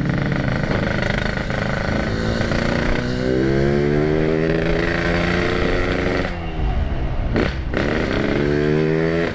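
Yamaha RX-King 135cc two-stroke single with a custom exhaust, accelerating: the engine note climbs, breaks off about six seconds in as it changes gear, then climbs again.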